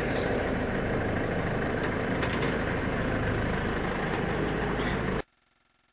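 Small fishing boat's engine running steadily under wind and water noise, with a few light knocks about two seconds in; it all cuts off suddenly about five seconds in.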